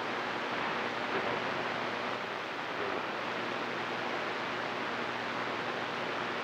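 Steady hiss and static from a CB radio receiver with the squelch open, between transmissions.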